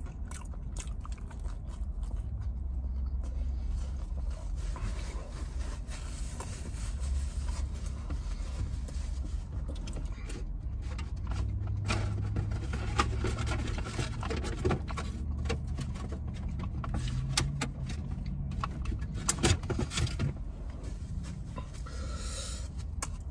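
Eating sounds, chewing with scattered small clicks and rustles, over a steady low rumble inside a car's cabin.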